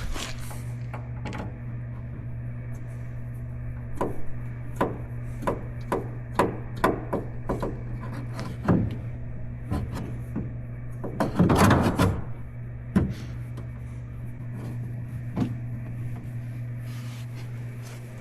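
Rear bumper cover being pushed and knocked into place on a car body: a string of irregular knocks and taps, with a louder scraping rattle about eleven seconds in, over a steady low hum.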